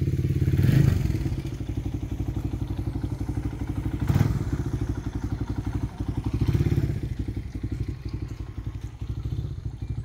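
Small motorcycle engine running with an even low pulse, swelling louder a few times, with a single knock about four seconds in.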